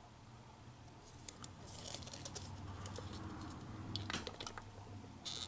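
Hands handling and turning a plastic Magic 8 Ball: scattered light clicks and rubbing of fingers on its shell, with the loudest clicks about four seconds in and a short rustle just before the end.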